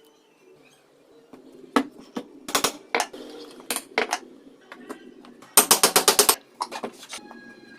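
Sharp clicks and metallic clatter of small parts and tools being handled during a fan repair, with a quick run of about eight taps a little after halfway.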